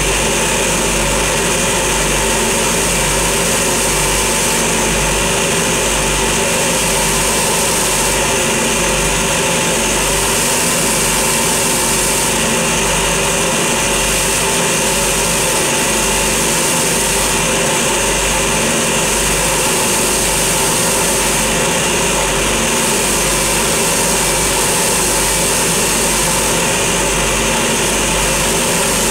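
Motor-driven wire brush wheel spinning steadily while a pair of old pliers is held against it, scrubbing the rust off.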